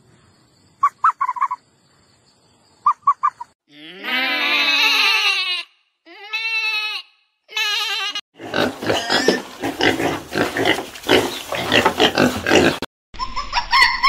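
A run of farm-animal calls: two quick clusters of short high chirps, then several long wavering sheep bleats, then about four seconds of dense rough grunting that cuts off suddenly near the end.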